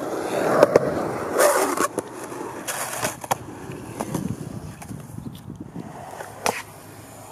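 Skateboard wheels rolling on concrete, louder for the first couple of seconds and then fading, with several sharp clacks of the board against the ground.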